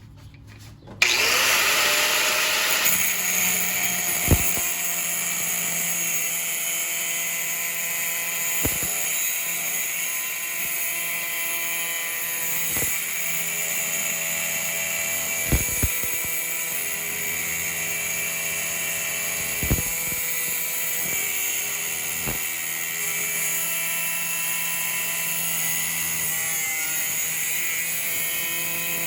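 Angle grinder spinning up about a second in and then running steadily with a high whine, with a few sharp clicks along the way.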